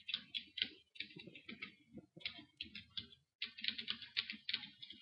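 Typing on a computer keyboard: a quick run of keystrokes as a user ID and password are entered, with a short pause a little after three seconds before the keys resume.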